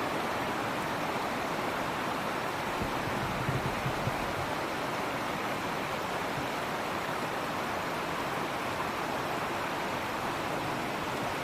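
Steady rush of flowing river water, with a few soft low bumps about three to four seconds in.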